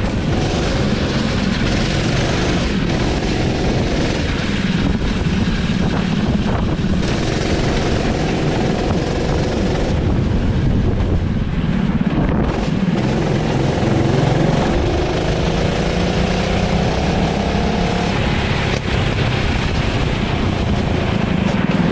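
Go-kart engine running under throttle, heard from the kart itself. Its pitch climbs steadily for a few seconds in the second half as the revs build, then drops sharply.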